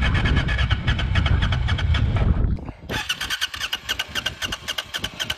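Adventure motorcycle engine running at a steady idle with even firing pulses. A low wind rumble on the microphone drops away about two and a half seconds in.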